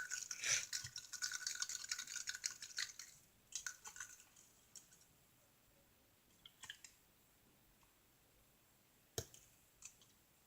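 Liquid sloshing and scraping in a plastic cup of slime ingredients (water, borax, glue) for about three and a half seconds, then a few light clicks and one sharp tap about nine seconds in.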